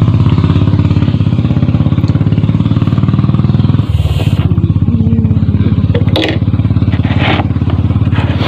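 A machine drone, loud, steady and low, with a fast even pulse. It dips briefly about four seconds in, and there are short sharp noises about six and seven seconds in.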